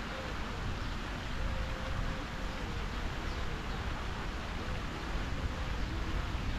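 Park ambience by a pond: a steady wash of wind and fountain jets splashing into the water, with faint distant voices.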